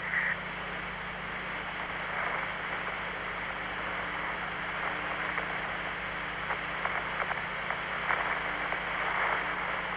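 Steady radio static between air-to-ground transmissions: an even hiss cut off in the treble like the radio voice channel, with a faint low hum underneath.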